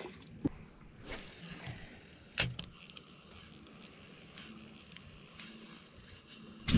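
Fishing rod and reel being handled and cast from an aluminium boat: a click, a short hissing whoosh about a second in, a sharp click, then quiet handling noise and a loud knock at the very end.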